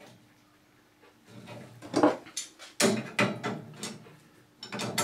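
Adjustable spanner and water-pump grips clinking and knocking against a brass compression fitting on copper pipe as the fitting is tightened: a quiet first second, then a run of sharp metallic clicks and knocks.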